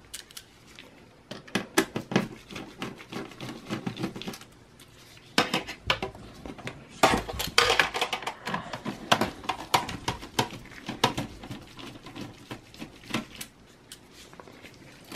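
Phillips screwdriver working on motherboard mounting screws in a steel computer case: irregular small metallic clicks, ticks and scrapes, coming in clusters with short pauses between.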